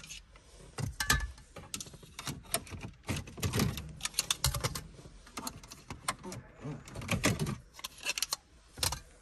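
Plastic clicks and rattles from round dashboard air vents of a Mercedes CLA being pried out of the dash and handled, in quick irregular clusters.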